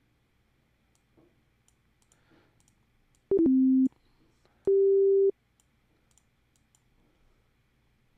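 Electronic notes from a software synthesizer in Logic Pro, played back as pure, plain tones. A quick run of short notes stepping down to a lower note lasting about half a second, then, about a second later, a single higher note of about the same length. Faint clicks sound between them.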